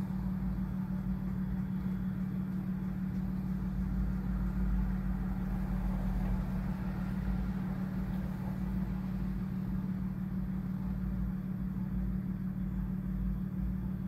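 Steady low hum with a rumble beneath it and a faint hiss, unchanging throughout; no voices.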